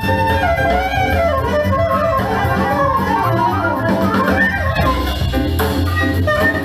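Instrumental jazz played back through a pair of Lipinski Sound L707 Monitor loudspeakers: a melody line wanders over a steady bass.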